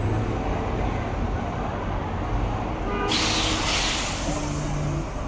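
Steady rumble of city street traffic. About three seconds in a loud hiss starts suddenly and lasts nearly two seconds, followed by a low steady hum of an idling engine.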